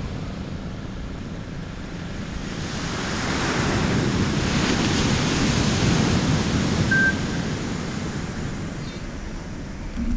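Sea surf: waves breaking and washing up the beach, one swell building a few seconds in, loudest in the middle and then easing off, with wind buffeting the microphone.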